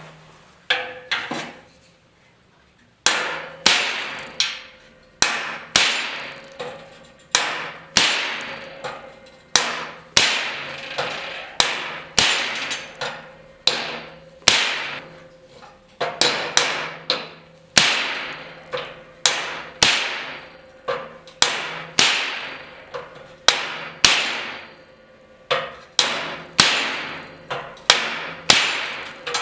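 Hammer striking a steel bracket, a long series of ringing metal blows about one or two a second, starting a few seconds in: hammering sheet steel into a bend.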